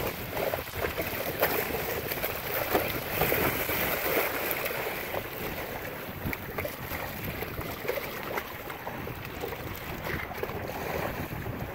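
Water splashing and churning as sharks strike and thrash at a bonito bait held at the side of a boat. The splashing is busiest in the first few seconds, then settles to a lighter sloshing.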